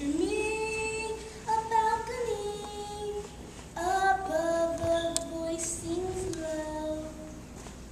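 A child's solo singing voice holding long, steady notes in two sung phrases, with a short break between them about halfway through.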